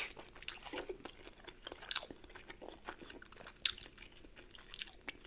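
A person chewing food close to the microphone, with scattered small crunches and mouth clicks; one sharper click a little past three and a half seconds.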